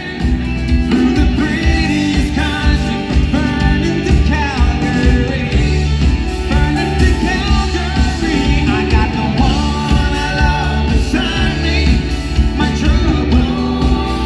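A live rock band playing through a PA: a male lead vocal over electric guitar, bass guitar, keyboards and drums, with a steady bass beat.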